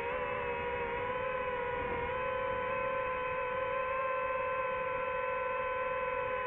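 DJI FPV drone's motors and propellers whining steadily while it holds nearly still in the air: a pitched hum with many overtones that steps up slightly in pitch about two seconds in.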